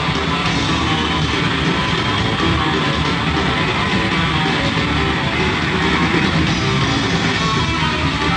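Live rock power trio playing an instrumental passage: electric guitar to the fore over bass guitar and drums, playing without a break.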